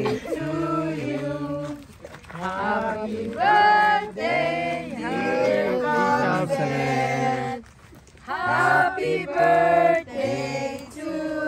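A group of people singing together without instruments, in held, mostly steady notes, with short breaks between phrases.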